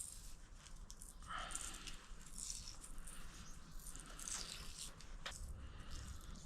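Cloth wiring-loom tape being pulled off the roll and wound around a motorcycle wiring loom: a run of short, irregular scratchy rustles.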